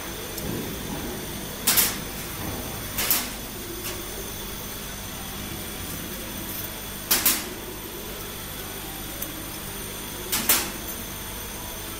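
Small laser-cut pieces of thin sheet steel clinking as they are picked out of the cut sheet: four sharp metallic clicks a few seconds apart, some doubled. Under them runs a steady machine hum.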